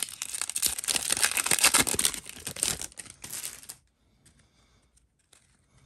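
Plastic trading-card pack wrapper being torn open and crinkled, a dense crackling rustle for nearly four seconds that then stops, leaving only a few faint ticks.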